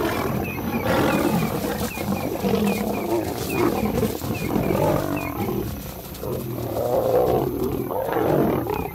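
Two lionesses and a male lion fighting at close quarters, growling and snarling in repeated surges of loudness.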